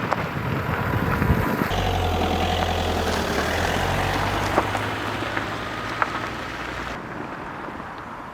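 A motor vehicle's engine running steadily with a low hum. It starts abruptly about two seconds in after a stretch of crackling noise and fades near the end.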